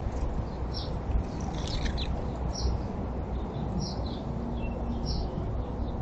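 Small songbirds chirping: short, high chirps roughly once a second, over a steady low rumble.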